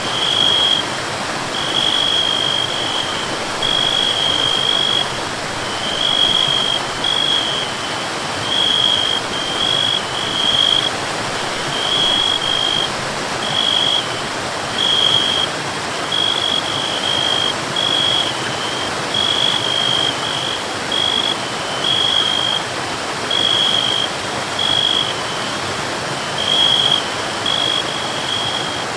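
Waterfall or stream running as a steady rush, with a high-pitched tone repeating in short pulses roughly once a second.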